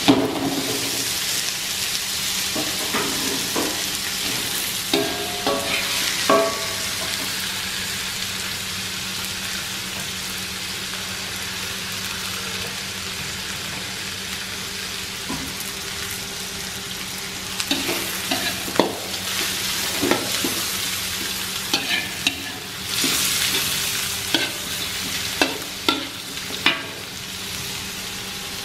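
Shrimp and chopped aromatics sizzling in oil in an aluminium wok, with a steady frying hiss. A metal spatula scrapes and clinks against the wok in bursts of stirring near the start, a few seconds in, and again through the second half.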